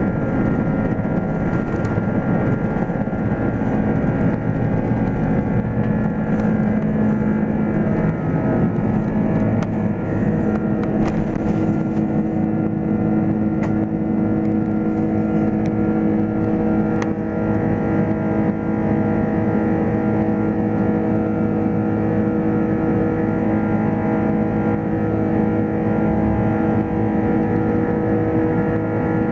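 Airbus A330's Rolls-Royce Trent 700 jet engines at takeoff power, heard from inside the cabin as a steady, loud engine noise with several steady tones, through lift-off and the initial climb. A few faint clicks come between about ten and seventeen seconds in.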